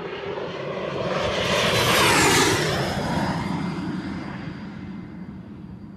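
Turboprop airplane flying past. The engine and propeller noise swells to a peak about two seconds in and then fades, and a high turbine whine drops in pitch as it goes by.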